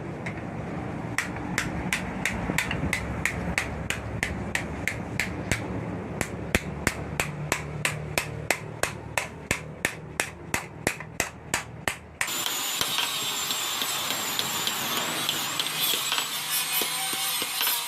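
A blacksmith's hammer striking steel on an anvil in a steady rhythm of about three to four blows a second while forging a knife blade. About twelve seconds in, it cuts abruptly to a steady whirring power tool with a high, wavering whine.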